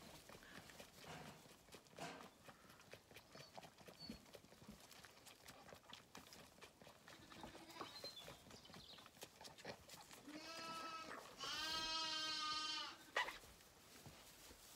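Zwartbles lamb bleating twice, a short call and then a longer one of about a second and a half, after some seconds of faint rustling and soft clicks.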